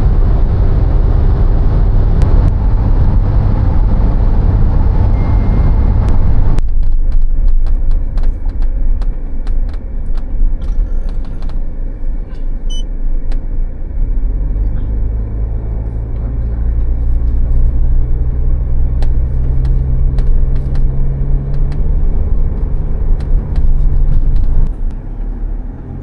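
A car driving, heard from inside the cabin: a loud, steady rumble of engine and road noise. About six and a half seconds in it changes abruptly to a duller rumble, and from about fourteen seconds a steady low engine hum comes through.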